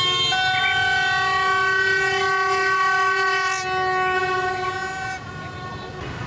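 Horns blowing long, steady notes, several overlapping at different pitches, over street traffic noise; they stop about five seconds in.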